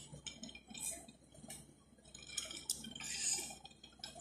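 Faint eating sounds close to the microphone: wet chewing and mouth noises with a few light clicks, like a utensil against a plate.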